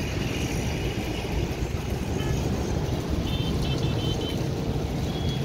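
Steady low rumble of city traffic heard from a high rooftop, with a bird chirping in a quick run of short high notes around the middle.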